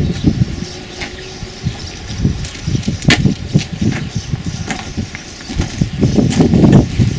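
Irregular low rumbling and rustling on the microphone with a few sharp clicks, growing busier near the end.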